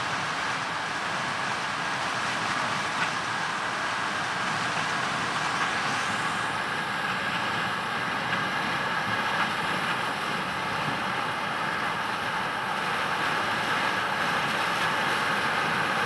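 Combine harvester threshing corn and unloading grain into a tractor-drawn trailer running alongside: a steady, even machine noise of engines, threshing drum and unloading auger. A faint high whine joins about six seconds in, and the noise grows slightly louder toward the end as the machines come closer.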